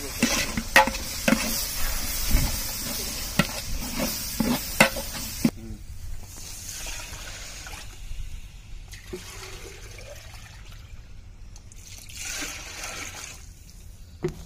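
Water poured into a large metal pot of hot frying masala: a loud hiss and sizzle with sharp pops as it hits the hot pot, cutting off suddenly about five seconds in. Then come quieter splashing pours of water from a plastic mug, twice.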